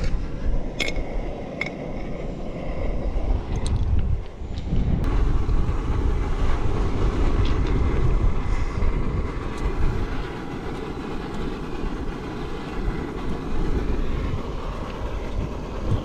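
Wind buffeting the microphone: a loud, uneven low rumble, with a few sharp clicks in the first few seconds.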